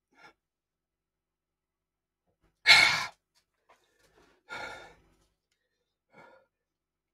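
A man breathes out in a heavy sigh about three seconds in, with a softer breath out about a second and a half later and faint breaths around them. This is a reaction to the burn of hot chilli ramen.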